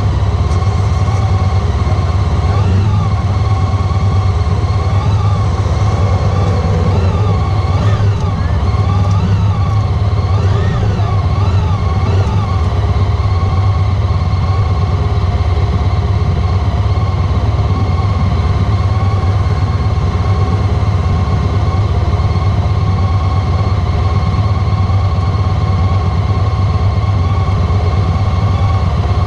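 Honda ST1300 Pan-European's V4 engine running steadily under way, heard as a loud, even low drone. A wavering tone rises and falls over it for the first ten seconds or so.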